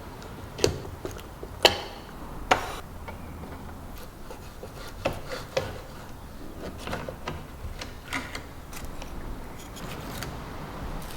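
Sharp clicks and knocks of small hard parts being handled, three louder ones in the first three seconds, then lighter scattered clicks and rubbing.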